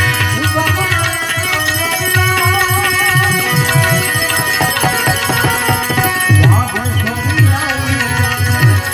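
Live Gujarati santvani devotional music with held harmonium notes, a steady beat of hand-drum strokes, and a pair of manjira hand cymbals struck in time.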